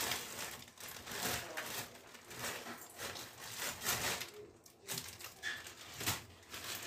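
Plastic carrier bag and foil-wrapped food packets rustling and crinkling in irregular bursts as the packets are lifted out of the bag and set down on a counter.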